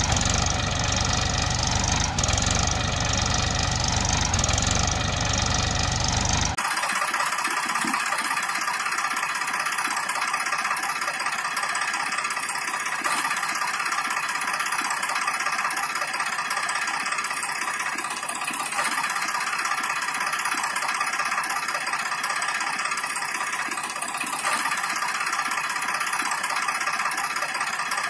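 Diesel tractor engines running steadily. About six and a half seconds in, the sound changes abruptly to a thinner, higher one with almost no low end.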